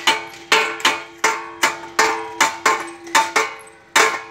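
Repeated metallic clanks from a steel-pipe outdoor gym machine being worked by two children, about two or three sharp, irregular knocks a second, each leaving a brief ringing tone.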